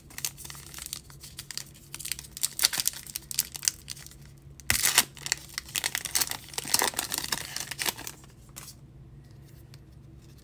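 Foil wrapper of a baseball-card pack crinkling in the hands and being torn open, with the loudest rip about five seconds in. The crinkling stops a couple of seconds before the end.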